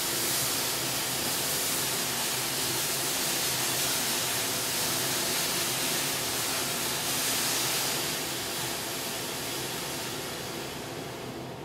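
Powerful mobile extraction fan running, a steady rushing hiss of air with a faint low hum, drawing air out of a small paint tent. The sound eases off over the last few seconds, the high hiss falling away near the end.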